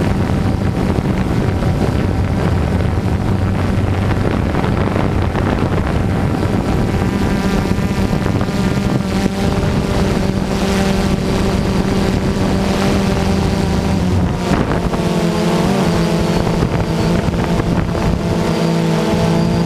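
DJI Phantom 2 quadcopter's motors and propellers humming steadily, heard from the GoPro mounted on the drone. About two-thirds of the way through, the hum's pitch shifts and wavers.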